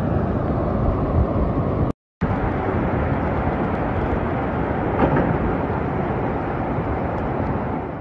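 Muddy floodwater rushing in a fast torrent, a dense steady rushing noise, briefly cut off about two seconds in.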